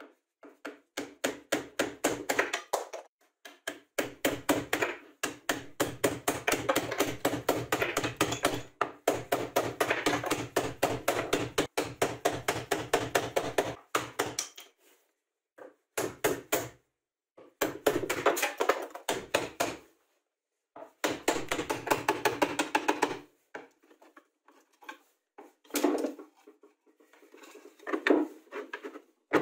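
Hammer striking a wood chisel in quick runs of taps, chopping slots into a clamped stack of laminated particleboard pieces, with short pauses between runs. Near the end, softer knocks and rustling as the slotted pieces are handled and sawdust is brushed off.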